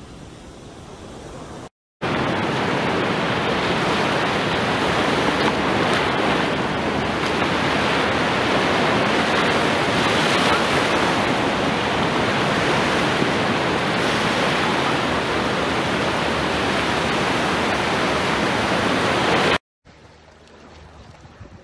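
Sea surf washing up a beach: a steady, loud rush of breaking waves that starts abruptly about two seconds in and stops abruptly near the end, with quieter surf before and after it.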